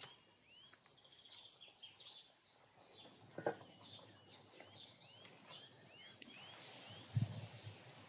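Several songbirds singing, with repeated short rising chirps, and a sharp click about three and a half seconds in and a dull thump near the end.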